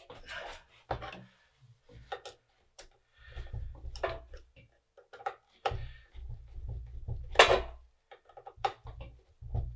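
Metal casing of a twin floppy drive unit being handled and refitted: irregular clicks, knocks and scrapes with bumps, and a sharp knock about seven and a half seconds in.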